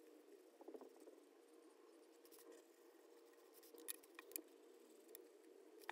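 Near silence with faint room noise, broken by a few light clicks about four seconds in and one more near the end, from a felt-tip marker being handled on a tabletop.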